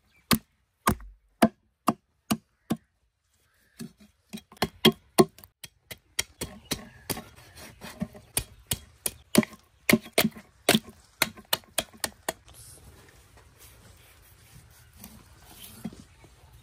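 Broad-bladed cleaver chopping through a large catfish onto a wooden chopping block: a run of sharp chops, about two a second, with a short pause near the start. About twelve seconds in the chopping stops and only faint cutting sounds are left.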